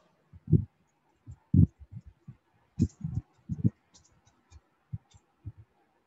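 Irregular keystrokes on a computer keyboard: dull low taps with a few sharper, fainter clicks, about two or three a second.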